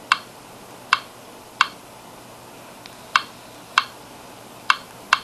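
Seven short, sharp clicks at uneven spacing as a stylus taps letters and numbers on the Intermec CK3 handheld's on-screen keyboard to enter a network SSID.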